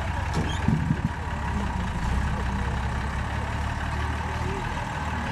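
Unimog off-road race truck's engine running at low revs as it crawls over a dirt mound, with a few louder thuds about a second in.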